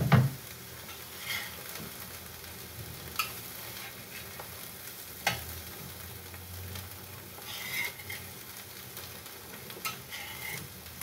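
Small omena fish sizzling in a frying pan on a gas stove as they are stirred and spread with a metal spatula. The spatula scrapes and clicks against the pan every couple of seconds, loudest at the very start.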